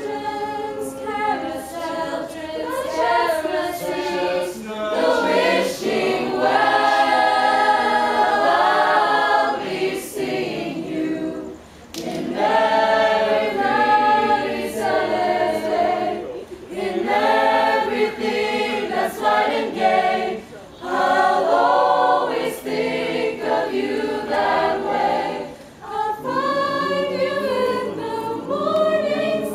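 Mixed-voice student vocal jazz choir singing a cappella in close harmony, in phrases with short breaks for breath between them.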